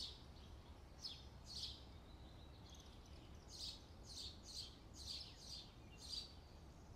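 Faint bird chirping: a series of short, high chirps, some in quick pairs, over a low steady hiss.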